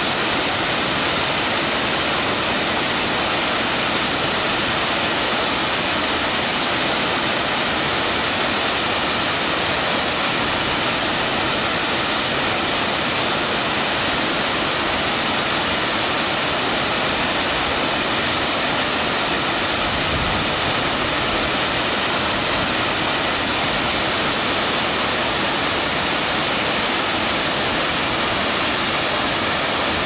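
A tiered waterfall with a 100 m drop, making a steady, even rush of falling water.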